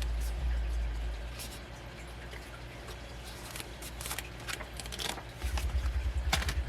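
Hands handling the paper and plastic contents of a K-pop album: scattered rustling, clicks and light taps, with low bumping handling noise at the start and again for the last second or so.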